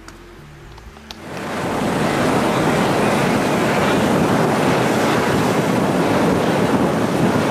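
Eurocopter EC135 helicopter flying low overhead: a loud, steady rush of rotor and engine noise that fades in over about a second, starting about a second in.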